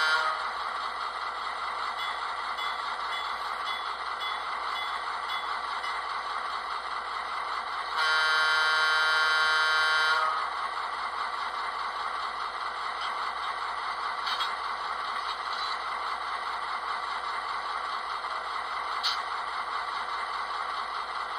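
HO-scale Walthers Mainline EMD SW7 model locomotive's sound decoder, through its small onboard speaker, playing a steady diesel idle. The tail of a short horn blast sounds right at the start, and about 8 seconds in the horn is held for about two seconds (function 2 held).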